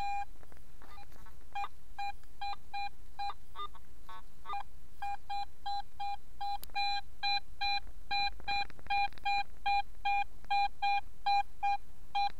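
Garrett AT metal detector beeping on a strong target signal. The beeps come irregularly at first, then about three times a second from about five seconds in.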